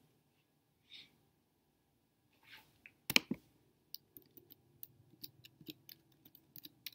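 A single knock about three seconds in, then light, irregular clicks, several a second, as a hand works the computer's keys and controls.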